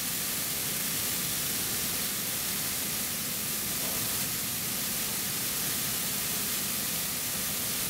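TRUMPF TRUMATIC L3030 CO2 laser cutter cutting sheet metal: a steady hiss and rush, with a faint steady tone underneath.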